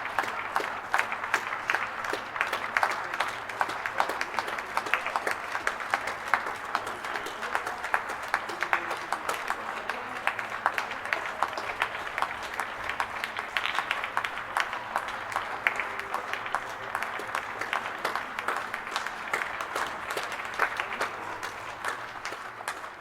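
A crowd applauding: many hands clapping densely and continuously, with a faint hint of voices in the crowd.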